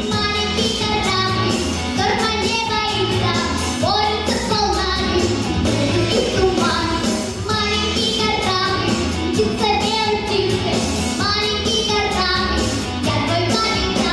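A girl singing a pop song over a backing track with a steady bass beat.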